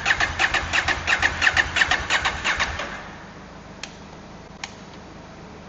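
KTM 790 Adventure parallel-twin engine cranking on its electric starter, with a rhythmic beat of about five pulses a second for roughly three seconds. It does not catch and run: the hard-start fault. Two sharp clicks follow about a second apart.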